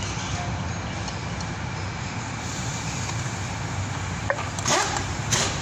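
Steady low background rumble, with a few sharp clicks from hands and parts knocking in an engine bay about four to five seconds in.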